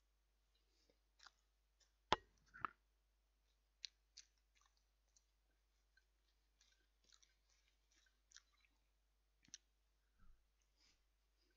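Faint eating sounds from a person chewing a burger in a bun: scattered soft mouth clicks and smacks, with two sharper clicks about two seconds in.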